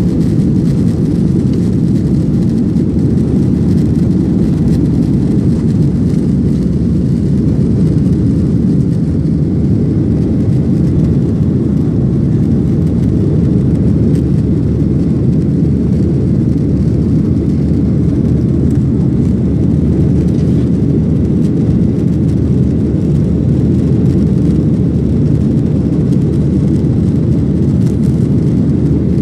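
Boeing 737-800's CFM56-7B jet engines at take-off power, heard from inside the passenger cabin as a loud, steady, deep rumble with no rise or fall.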